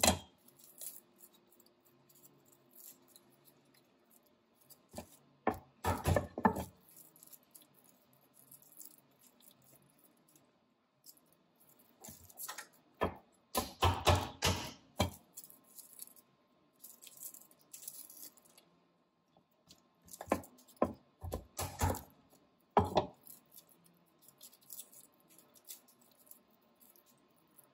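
Garlic cloves being cracked under the flat of a chef's knife on a wooden cutting board. Several short clusters of knocks and crunches are separated by quieter stretches, with the rustle of papery garlic skins being peeled by hand.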